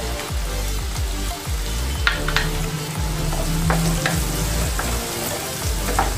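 Diced carrots and onion sizzling in melted butter in a heavy-bottomed kadhai while being stirred, with the spatula scraping and tapping against the pan several times.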